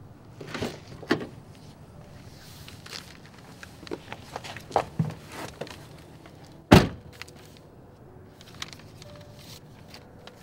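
A car door is unlatched and opened with two sharp clicks, followed by rustling and shuffling as someone settles into the seat and handles paper. A little past the middle the door is pulled shut with one loud thump, the loudest sound here.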